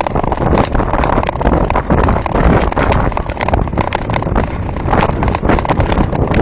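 Wind buffeting the microphone of a camera mounted on the handlebars of a moving bicycle, over the bike's road noise, with many small knocks and rattles from riding over the road surface.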